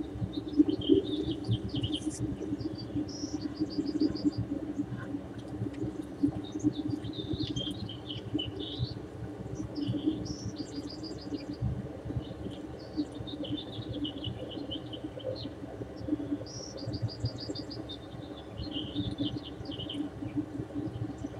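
Small birds chirping and singing short high phrases, some of them quick trills of rapidly repeated notes, every second or two over a steady low background noise.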